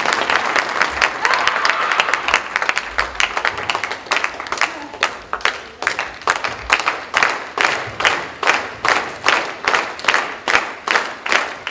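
Arena audience applauding, first as scattered clapping and then, about four seconds in, as steady rhythmic clapping in unison, about three claps a second.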